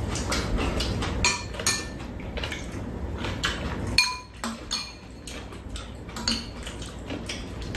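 Metal spoons and chopsticks clinking and scraping against ceramic bowls during a meal: irregular sharp clinks, some leaving a brief ringing note.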